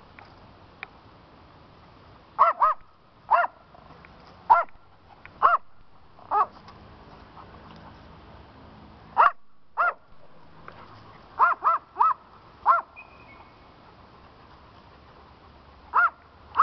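A dog barking in short, high-pitched barks, about a dozen of them at irregular intervals, some in quick pairs or triplets.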